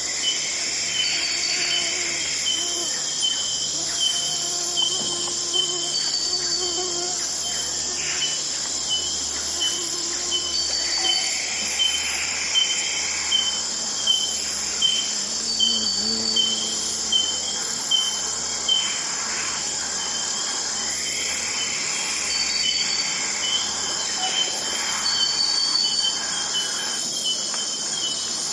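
Amazon rainforest dawn ambience: a dense, steady chorus of insects and crickets, with a short high chirp repeating about one and a half times a second and a few faint calls from other animals now and then.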